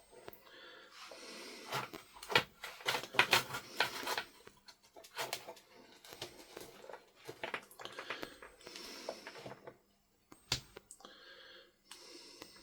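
Close, soft breathing with scattered small clicks and taps from handling wires and tools during soldering work on an LED pixel strip.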